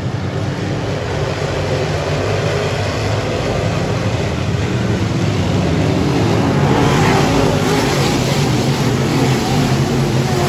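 A pack of dirt-track race cars running together on the track, many engines at racing speed. The sound swells louder as the field sweeps past about seven seconds in, then eases slightly.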